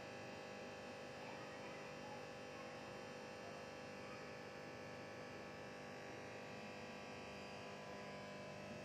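Faint, steady electrical hum with several fixed tones; nothing else stands out.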